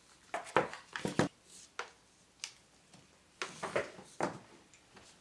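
Handling of a projector's power cord and plastic power-adapter brick: irregular light clicks and knocks as the plug is fitted and the cable and brick are moved about on the table, clustered about a second in and again near four seconds.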